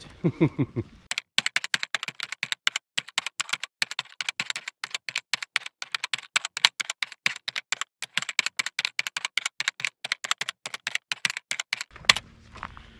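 A rapid run of sharp, irregular clicks, like typing on a keyboard, starting about a second in and stopping shortly before the end.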